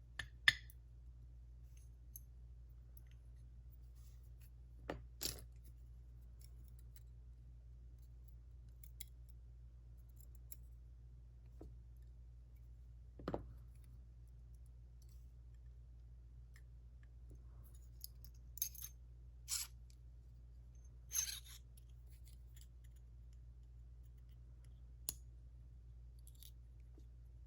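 Scattered light metallic clicks and taps of small lock parts and tools being handled while the JPM Surf lock's bible is taken apart, over a steady low hum.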